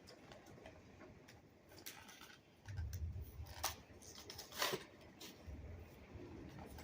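A Hot Wheels Premium blister card being opened by hand: scattered small clicks and crackles of the plastic blister and cardboard, with two louder snaps about three and a half and four and a half seconds in, and some dull handling bumps.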